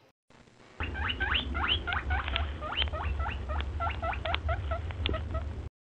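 An animal's rapid chirping call: a run of high chirps, each sliding down in pitch, about four a second, getting fainter toward the end, over a steady low rumble. It starts and stops abruptly.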